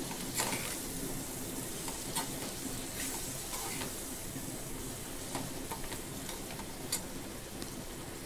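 Green chillies and a wet spice paste sizzling in hot oil in a kadhai, stirred with a perforated metal spatula that gives a few light clicks against the pan.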